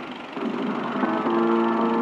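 Film soundtrack music playing while a 35mm film projector runs, with the projector mechanism running underneath. About a second in, the music settles into several sustained held notes.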